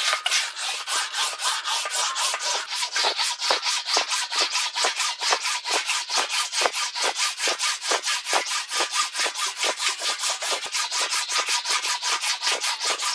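Sheet-metal roof panel being run back and forth through an English wheel, the wheels rolling over the sheet in a rhythmic rasping swish of about five strokes a second, with a thin steady ring underneath. This is touch-up wheeling to blend the roof panel's shape.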